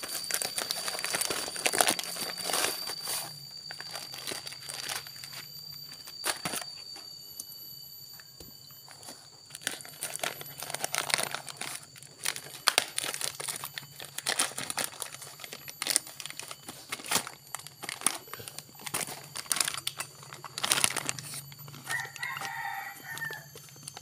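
Plastic mailer and packing tape crinkling and tearing in short rustles and snaps as a parcel is torn open by hand. A rooster crows once near the end.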